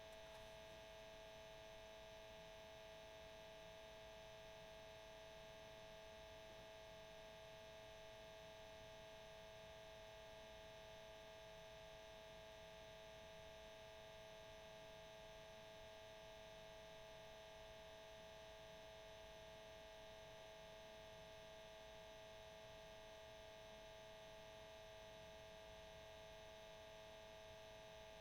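Cassette tape motor running: a faint, steady hum with one clear mid-pitched tone on top and a light hiss beneath, unchanging throughout.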